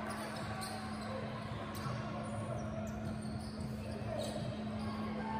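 Basketball game play in a gym: a ball bouncing now and then over a murmur of crowd voices, with a steady low hum underneath.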